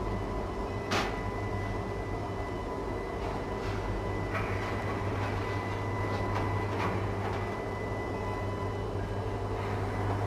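Steady low hum of workshop machinery in an engine-assembly shop, with a sharp click about a second in and a few fainter clicks and knocks of tools on metal.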